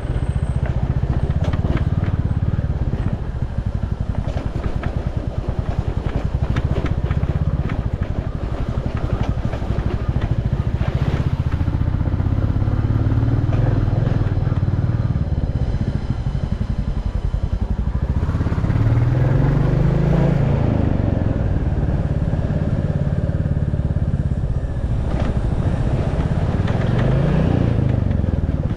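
Motorcycle engine running under way. It revs up twice, once about two-thirds of the way through and again near the end.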